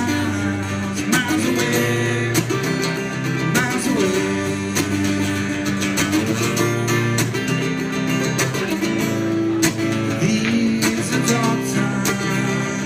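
Acoustic guitar strumming chords in an instrumental break of a song.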